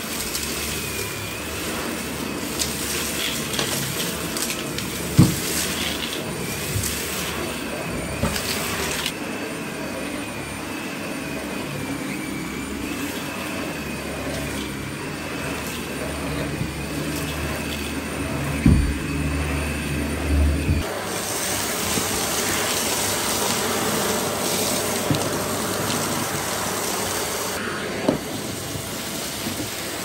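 Dyson Ball Animal upright vacuum cleaner running on carpet: a steady rush of suction with a high whine over it, and a few knocks. About 21 seconds in, the whine and low hum drop away and the sound turns into a broader, hissier rush.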